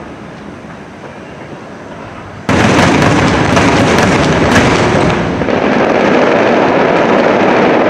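Aerial fireworks: a fading rumble at first, then about two and a half seconds in a sudden loud barrage of shell bursts and crackling that keeps going.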